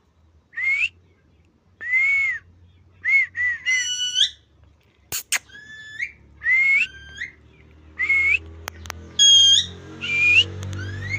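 A pet bird whistling: a string of short rising whistles about once a second, with a few harsher squawky calls among them. A faint low hum runs underneath.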